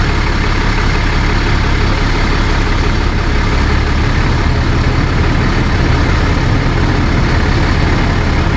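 A vehicle engine idling steadily, a constant low hum with no change in speed.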